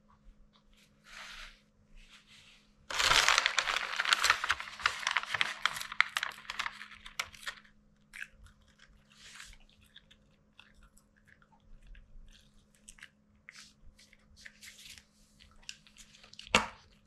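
Paper tissue crinkling and rustling as it is handled. It is loud for about four seconds, then gives way to scattered small rustles and clicks, with one short sharp burst near the end.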